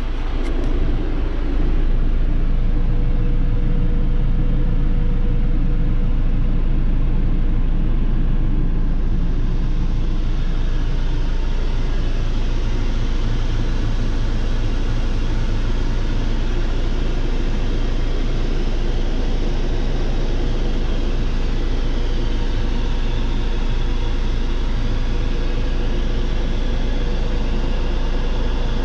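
Kubota L6060 tractor's four-cylinder diesel engine running steadily, heard from inside the closed cab, with a low drone. About nine seconds in, a brighter hiss joins it.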